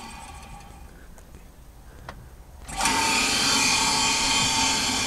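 Electric motor-driven centrifugal water pump running: a steady motor whine over a rush, coming in suddenly about three seconds in and holding loud and even. The pump is drawing water up from a well and pushing it into a storage tank.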